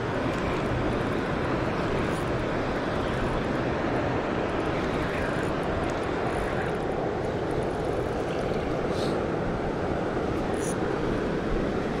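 Steady rushing of a small river's current, an even unbroken wash of moving water.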